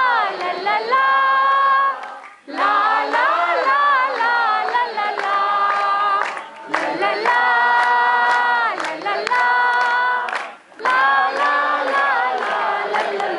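A group of voices singing a devotional bhajan together in long, held notes, phrase by phrase, with short breaks between phrases about two and a half seconds in and again near the end.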